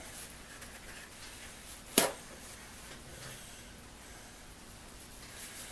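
Faint rustling of a paper towel handled and wiped over a rotary hammer's body, with one sharp knock about two seconds in.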